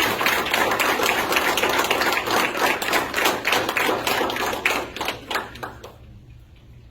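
Audience applauding, a dense patter of many hands clapping that fades out about five to six seconds in.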